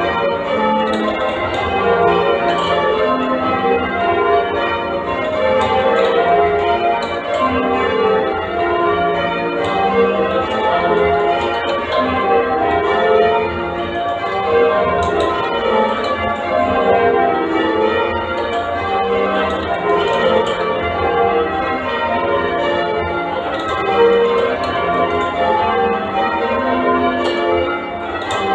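Ring of eight church bells, cast by Mears & Stainbank, change ringing a touch of spliced major: a steady, continuous stream of overlapping bell strikes.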